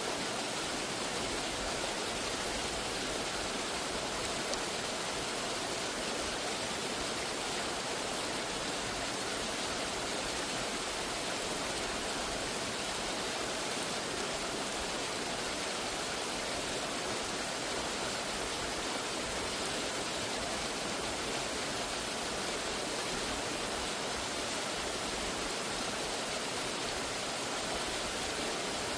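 Steady rush of cascading water, an even hiss with no breaks or changes.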